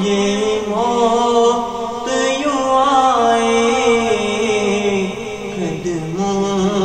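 A man's voice singing an Urdu naat, drawing out long held notes that waver and glide up and down.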